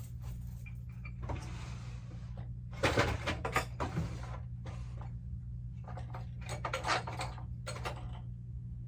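Rummaging and handling of small hand tools, with a louder clatter about three seconds in and a run of clicks and knocks around seven seconds, over a steady low hum.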